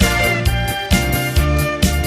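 Saxophone playing a melody over a trot backing track, with a steady drum beat of about two strokes a second and a bass line.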